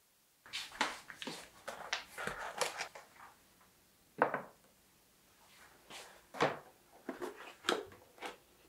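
Baking ingredients being set down one after another on a kitchen countertop: a string of light knocks and clacks from a plastic tub, a small bottle and yogurt cups, with some rustling between them. The sharpest knock comes about four seconds in.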